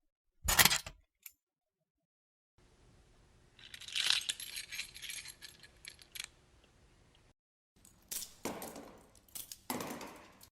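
A bunch of metal keys jingling and clinking in separate short takes: a brief jangle about half a second in, a longer shaken jingle in the middle, and a few sharp clinks near the end.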